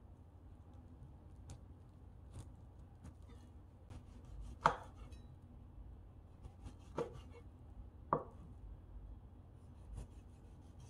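Kitchen knife slicing a jujube on a plastic cutting board: a few separate cuts, the loudest about halfway through, then two more over the next few seconds and a faint one near the end, with small handling clicks before the cutting starts.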